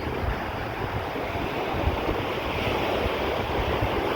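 Sea surf washing onto a beach, with wind buffeting the microphone in uneven low rumbles.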